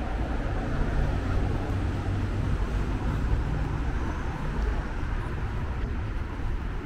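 Road traffic noise from cars on the adjacent street: a steady rumble, heaviest in the bass.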